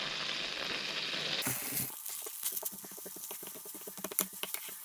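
Butter sizzling in a frying pan. About a second and a half in, it gives way to sliced onion frying, and a wooden spatula stirs it, with many quick scrapes and knocks against the pan over the sizzle.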